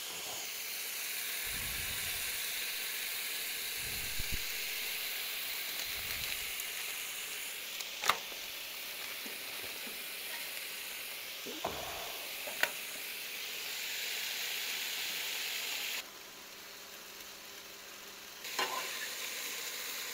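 Meat sizzling in a frying pan on a two-burner camp stove, a steady hiss, with a few sharp clinks in the middle. The sizzle drops suddenly about three-quarters through and comes back near the end.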